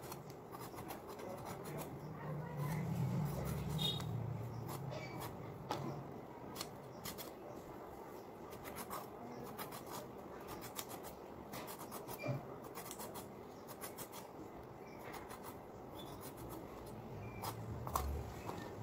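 Pointed gourd (potol) being sliced by hand on a boti, a fixed upright curved blade: a string of irregular crisp cuts, some coming in quick runs.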